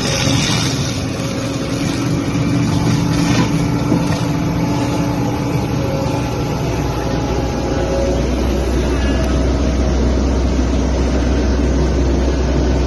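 Excavator-mounted Monde mulcher running, a steady loud machine drone, with a deeper hum growing stronger about eight seconds in.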